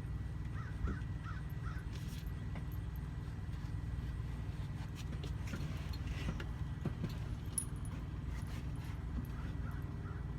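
A few short bird caws about a second in, over a steady low hum.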